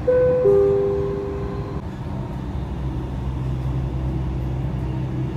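Two-note falling chime from the Dubai Metro train's public-address system, the two notes overlapping for about two seconds. Under it and after it runs the train's steady running hum, heard inside the carriage.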